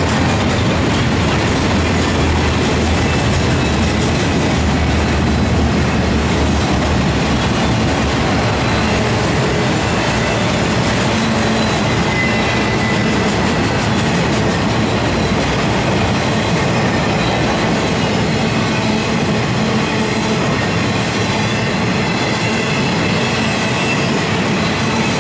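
Norfolk Southern intermodal freight cars, trailers on flatcars and then empty flatcars, rolling past at speed: a steady, loud rumble and rattle of steel wheels on the rails.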